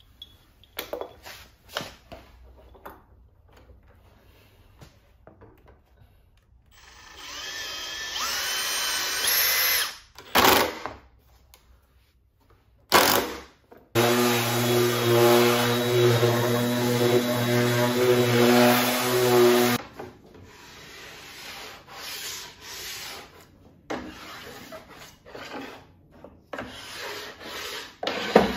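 Handheld cordless drill running in bursts, the longest a steady motor whine of about six seconds, between light clicks and knocks of workshop handling.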